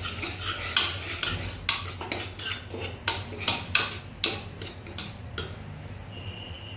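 A metal spoon stirring and scraping in a cooking pot, mixing vegetables with spices, with irregular knocks against the pot's sides that stop about five and a half seconds in.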